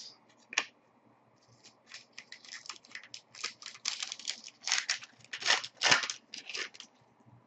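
A hockey card pack's wrapper being torn open and crinkled, giving an irregular run of crackling rustles for several seconds.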